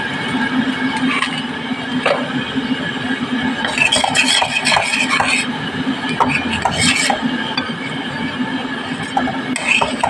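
A spoon stirring and scraping thick masala paste in a stainless-steel pan, in short spells about four seconds in, around seven seconds, and again near the end, over a steady low hum.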